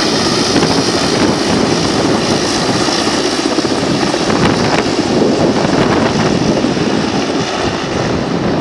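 Helicopter flying overhead and moving away, a loud steady mix of rotor and turbine noise; the high whine fades a little near the end.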